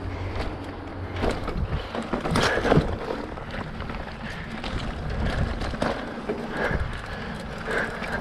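Specialized Rockhopper mountain bike ridden over a dirt trail: tyre noise on the ground with frequent clicks, knocks and rattles from the bike as it goes over bumps.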